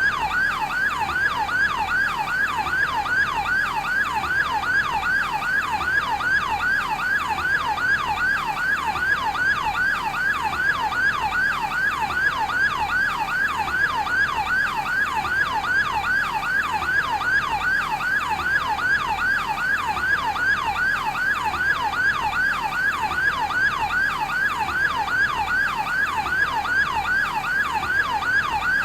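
Fire brigade advanced life support unit's electronic yelp siren, wailing in rapid sweeps up and down about three times a second, without a break.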